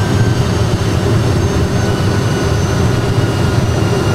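Steady low rumble of an Airbus A320 full flight simulator's engine and airflow sound, with a faint thin whine above it, during a landing approach with the gear down and flaps fully extended.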